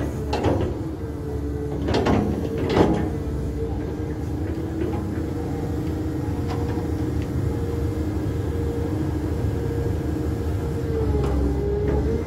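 Caterpillar 320 hydraulic excavator's diesel engine running steadily under hydraulic load, with a held machine tone that wavers near the end. A few knocks in the first three seconds as the bucket works the soil slope.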